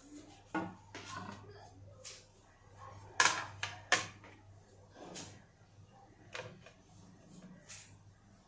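Knocks and clatter of a plate-ware serving platter being set down on the counter and handled. The sharpest two knocks come about three and four seconds in, followed by lighter taps.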